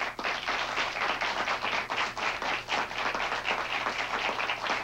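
Studio audience applauding, many hands clapping at once.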